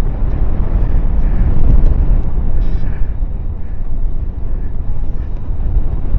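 Wind rushing and buffeting over the microphone of a paraglider in flight, a loud low rumble, with a few faint short beeps from the flight variometer.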